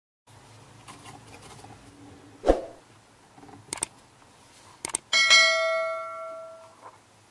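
The steel slide plate over the bobbin case of a Butterfly sewing machine being worked open and shut: a sharp knock about two and a half seconds in, two lighter clicks, then a metallic clang that rings like a bell for about a second and a half.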